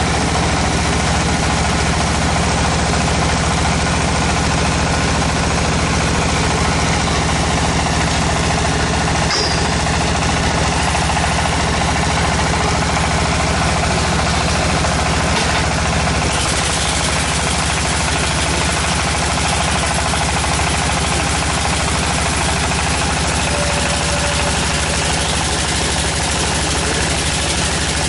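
The tractor engine of a tractor-mounted water well drilling rig running steadily at constant speed, with a fast, even pulsing throb.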